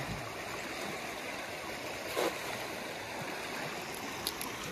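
River water rushing steadily past a rocky bank. A brief louder sound about two seconds in, and two faint clicks near the end.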